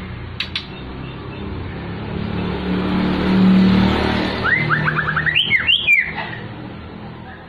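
A white-rumped shama singing a rapid run of about a dozen quick chirping notes over a steady rumble of road traffic, which swells as a vehicle passes just before the song.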